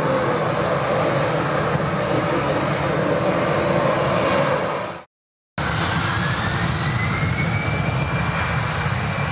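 Swiss Airbus A319's twin CFM56 turbofans running loud and steady as it lines up on the runway. The sound drops out completely for about half a second past the middle. It comes back with a whine rising in pitch and then levelling off as the engines spool up for the takeoff roll.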